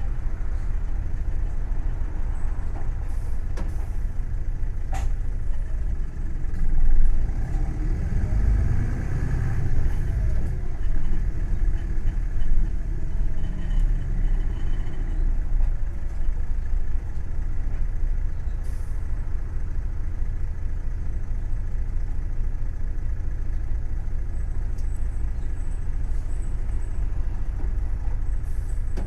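Hino Blue Ribbon City Hybrid bus running, a steady low rumble with a whine that rises and falls in pitch in the first half. This is a bus singled out for an abnormal running noise.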